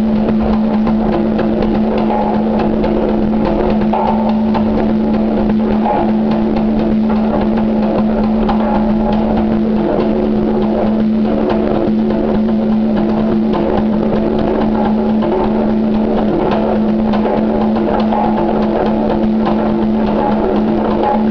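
Pair of congas played by hand in a dense, continuous run of strokes, over a steady low tone.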